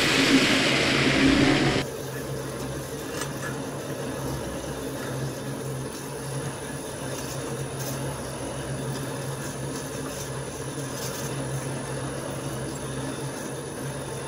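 Twin-shaft industrial shredder tearing aluminium kitchen foil for under two seconds, a loud hissing grind. The sound then drops abruptly to the shredder running empty with a steady low hum.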